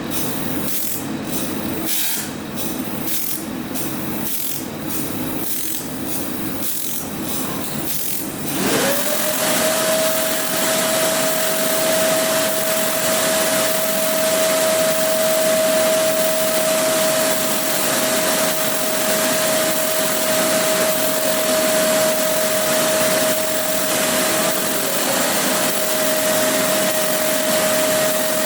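A laser glass-drilling machine running. At first there is a row of irregular clicks over a steady hum. About nine seconds in, a motor spins up and holds a steady whine over an even hiss, like a blower or extraction fan.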